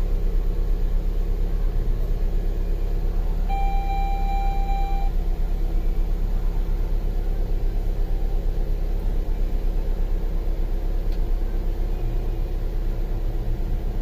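2005 Saturn Ion's 2.2-litre four-cylinder engine idling steadily with an even pulse. About four seconds in, a short electronic beep sounds for about a second and a half.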